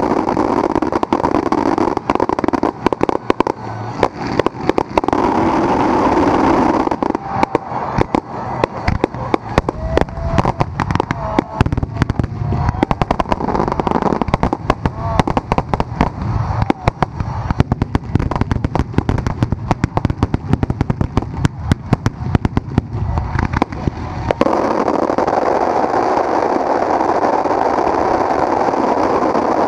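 Fireworks barrage fired at close range: a steady rushing roar, then from about seven seconds in a dense, rapid run of cracks and bangs that stops sharply near the end, leaving the steady roar again.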